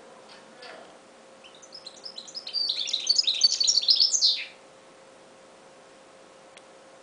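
Caged goldfinch mule (goldfinch hybrid) singing one burst of rapid, high twittering song. It starts softly about a second and a half in, grows loud, and breaks off suddenly after about three seconds. A faint steady hum runs underneath.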